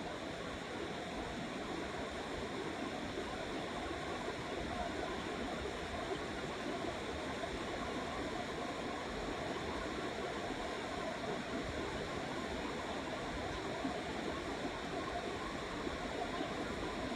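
Fast-flowing river rushing steadily, an even wash of water noise.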